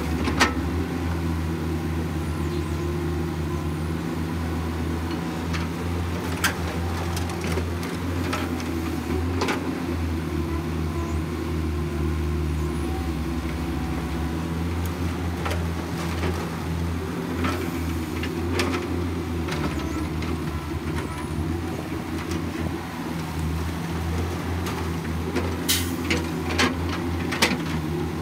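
Caterpillar hydraulic excavators' diesel engines running steadily under load while digging dirt and loading a dump truck, with a few short sharp clanks from the bucket and the truck bed as it is loaded.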